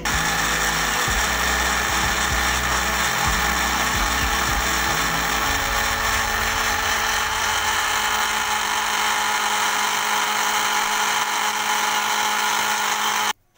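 Countertop electric blender running at speed, puréeing spinach with water in its glass jar. There is an uneven low rumble for the first five seconds or so, then a smoother, steady motor noise, and it switches off abruptly near the end.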